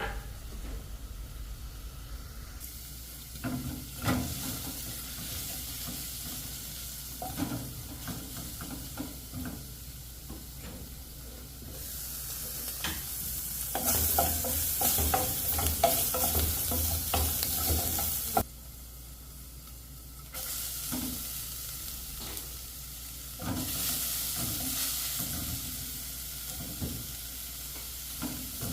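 Slices of sausage frying in a pan, a steady high sizzle with the knocks and scrapes of a utensil stirring them. The sizzle changes level abruptly several times and is loudest about halfway through.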